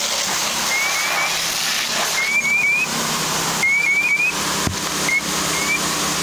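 Steady rushing hiss of a fire hose hand line flowing a water stream, with short rising high chirps repeating in quick runs of two or three throughout.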